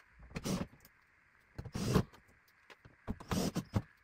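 Handling noises: four short scraping, rustling bursts about a second and a half apart, over a faint steady hiss.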